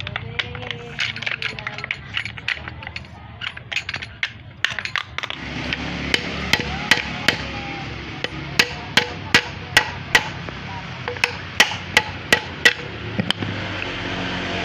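Hammer blows during repair work on a child's bicycle: lighter irregular taps at first, then louder strikes in quick runs of two to three a second.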